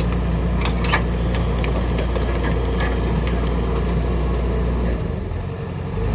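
Used hydraulic excavator's diesel engine running steadily, with a few short knocks or clanks about a second in. The low drone eases off about five seconds in.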